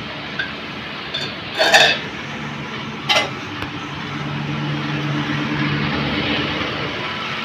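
Steady household background noise, broken by two short clattering knocks in the first half. A low hum swells about four seconds in and fades away near the end.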